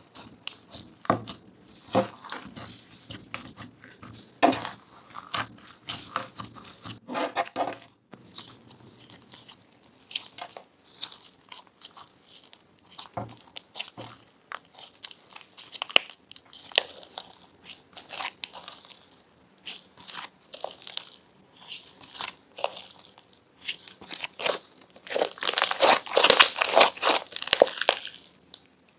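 Irregular crunching and crackling in short strokes, thickening into a dense, louder run of crunching near the end.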